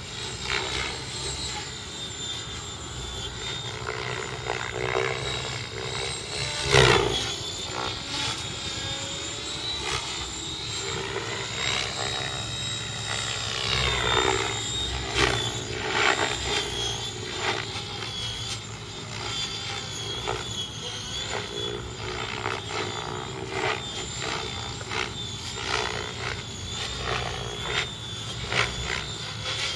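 Align T-Rex 700E electric RC helicopter in aerobatic flight: the whine of its electric motor and the swish of its rotor blades, the pitch rising and falling as it manoeuvres. A sudden loud burst comes about seven seconds in.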